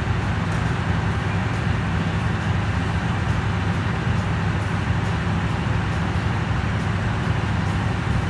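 Diesel locomotive engine idling: a steady low hum with even engine tones that holds unchanged throughout.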